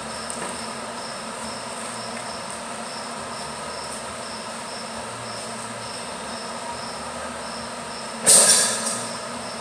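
Steady workshop hum with a faint high chirp repeating about twice a second. A little over 8 seconds in, a loud burst of rushing hiss starts suddenly and fades out over about a second.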